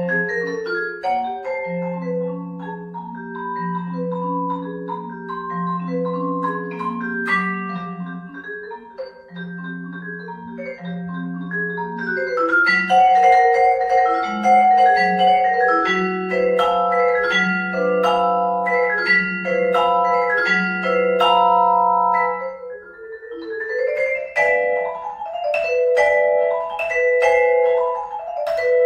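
Solo vibraphone played with mallets: struck metal bars with long ringing notes overlapping into chords above a low repeated bass note. About twelve seconds in it grows louder and busier, and it softens briefly a few seconds before the end.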